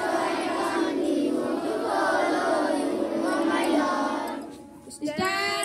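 A large group of schoolchildren singing a prayer together in unison. Shortly before the end they pause, and a single clear voice starts up.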